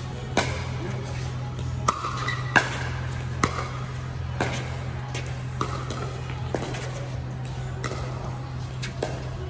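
Pickleball paddles hitting a hollow plastic pickleball back and forth in a rally: sharp pops about once a second, at an uneven pace. Music plays in the background.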